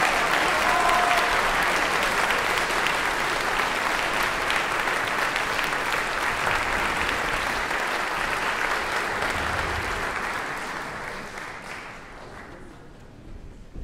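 Concert audience applauding a string sextet's performance, the clapping dying away about ten to twelve seconds in.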